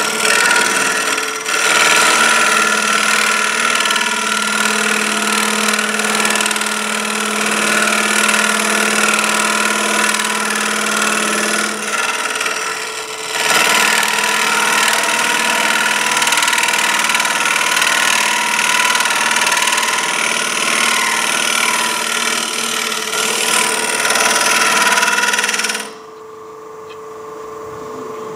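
Wood lathe running while a turning tool cuts the spinning wooden canteen blank, thinning its wall: a loud steady hiss of the cut over the lathe's steady whine. The cut eases off briefly about halfway and stops about two seconds before the end, leaving the lathe whine alone.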